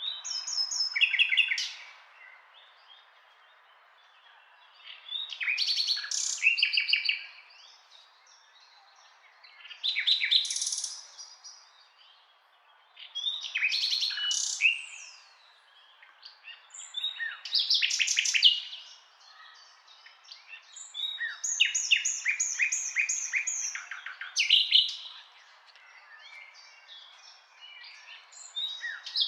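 Nightingale singing in separate phrases, about seven of them, each a quick run of rapidly repeated high notes and whistles lasting one to three seconds, with short pauses between phrases.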